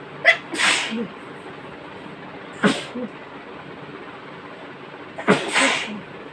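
A woman sneezing three times, about a second in, midway and near the end, set off by sniffing a strong snuff-like powder. The first and last sneezes each have a sharp onset followed by a longer breathy burst.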